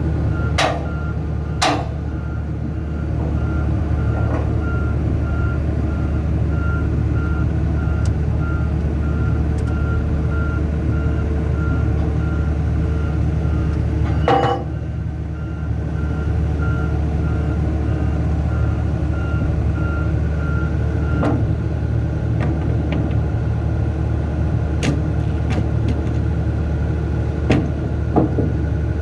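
Large hydraulic excavator's diesel engine running steadily under work, with a repeating beeping alarm that stops about two-thirds of the way through. Several sharp knocks cut through, the loudest about halfway.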